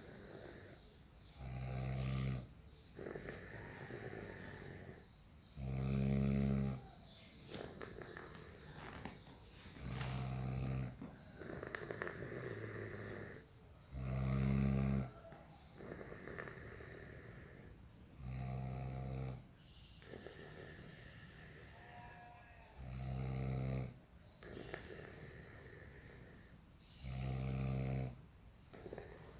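A sleeping person snoring: seven short, loud, low rumbling snores about every four seconds. Each is separated by a longer, breathy, hissing breath.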